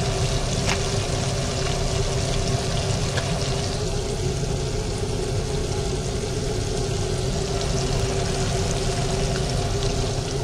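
Chicken skin deep-frying in oil in a small pot, a steady bubbling sizzle, over a steady low hum.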